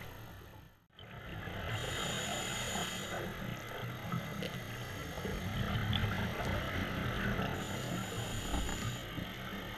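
Scuba breathing through a regulator, heard from an underwater camera housing: two inhalations as a high hiss, with rumbling, crackling exhaust bubbles between them. The sound briefly drops out about a second in.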